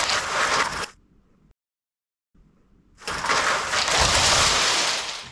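Lego bricks crashing down and clattering as a model is knocked apart: a dense rush of plastic rattling that cuts off about a second in, then the same crash starts again about three seconds in, as the clip loops.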